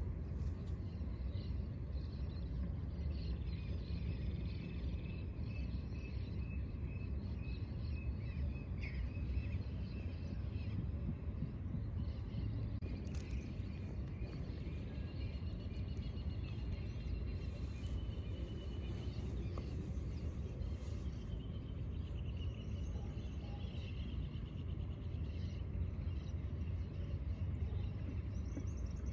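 Outdoor lakeside park ambience: a steady low rumble with faint, drawn-out bird calls over it at times.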